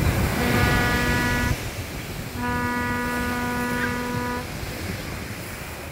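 A horn sounds twice on one steady pitch, a short blast and then a longer one, over a low wind-and-surf rumble.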